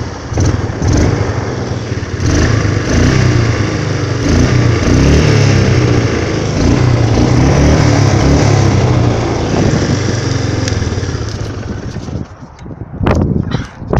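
400 ATV engine running while being ridden, its pitch rising and falling with the throttle. The engine sound drops away about twelve seconds in.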